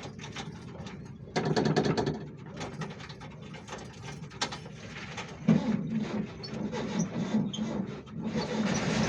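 Volkswagen Kombi running with a rapid mechanical ticking and rattle that gets louder about five and a half seconds in, with a few faint high chirps. The owners put the noise down to a leaking manifold letting air escape.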